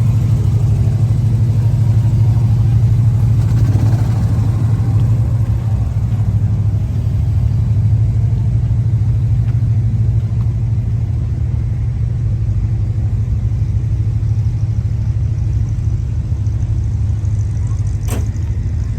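Car engine and road rumble, a steady low drone. A single sharp click comes near the end.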